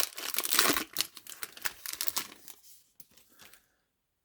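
Card pack wrapper crinkling and tearing as it is opened, with dense crackling that dies away after about two and a half seconds into a few faint rustles.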